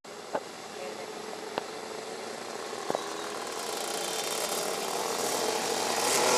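A pack of racing go-kart engines running as the karts approach, the sound growing steadily louder. A few brief clicks in the first three seconds.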